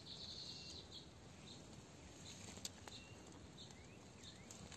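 Near silence: faint outdoor ambience with a few soft, high bird chirps and a single short click about two and a half seconds in.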